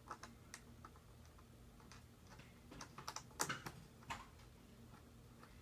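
Light, scattered clicks and taps from a football helmet visor and facemask being handled while a visor screw is fitted, with a quick cluster of clicks a little past three seconds in.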